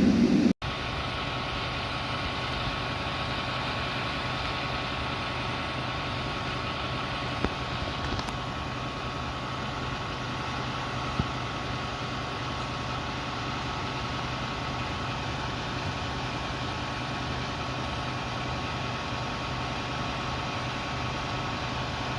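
Fire apparatus engine idling steadily, with a constant high whine over the low hum; a couple of faint clicks about a third and halfway through.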